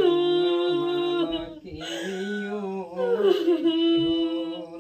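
Devotional folk song to the goddess, sung in long drawn-out, wavering notes: two held phrases, the second starting about two seconds in.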